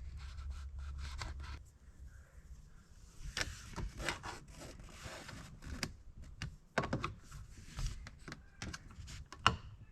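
Screwdriver prying and scraping at the plastic press-fit speaker cover in a Porsche 993 door: irregular small clicks and scrapes as the tip works around the clipped edge. A low hum stops about a second and a half in.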